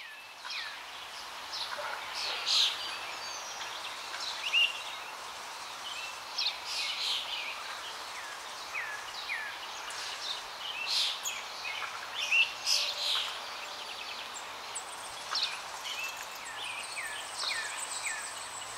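Many birds chirping and calling in short, quick notes, some falling in pitch, over a steady outdoor hiss.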